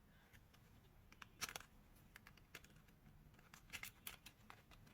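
Faint, scattered light clicks and scrapes of a Philips electric shaver's plastic housing and circuit board being handled as the board is pulled out, in a few short clusters about a second and a half in and near the end.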